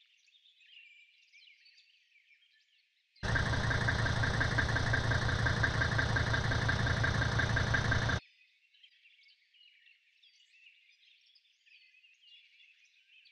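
Mercedes W126 engine and exhaust running, loud for about five seconds, cutting in and out abruptly. Faint birdsong before and after.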